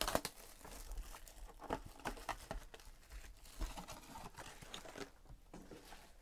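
Plastic wrap and a foil wrapper on a trading-card box and pack crinkling and tearing as they are opened by hand. It is a run of irregular crackles that thins out after about five seconds.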